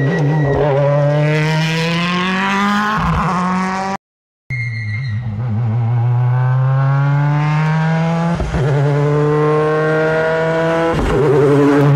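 Toyota Yaris rally car accelerating hard, its engine note climbing in pitch through the gears and dropping back sharply at each of three upshifts. The sound cuts out for half a second about four seconds in.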